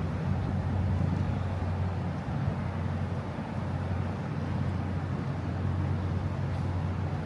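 A steady low engine drone, an even hum with general outdoor noise over it.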